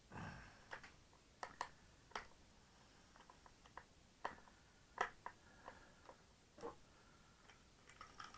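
Faint, irregular clicks and light knocks of a screwdriver and screws on the thin metal case of an e-bike battery being taken apart, with a soft thump at the start.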